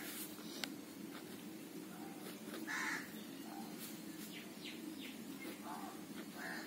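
A crow cawing several short times in the background, the loudest call about three seconds in, over a low steady hum. Faint scratches of a pen writing on paper.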